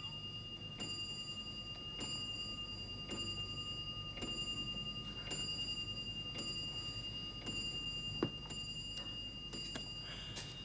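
Clock ticking at a slow, even pace, about once a second, over a steady high-pitched tone.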